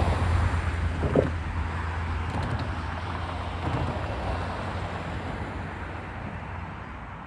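Union Pacific double-stack intermodal train rolling past, a steady low rumble of wheels and cars that slowly fades. A brief sharper noise stands out about a second in.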